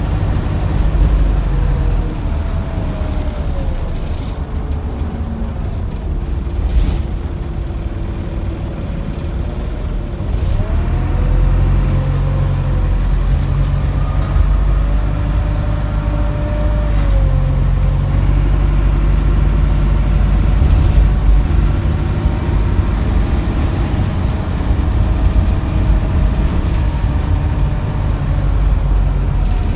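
Heard from inside an Optare Solo single-deck bus on the move: the diesel engine and drivetrain drone, with whining tones that rise and fall in pitch as the bus changes speed. The engine is quieter for a few seconds, then pulls louder from about a third of the way in. The uploader calls it a horrible sound and says the bus sounds ill; it had broken down the day before.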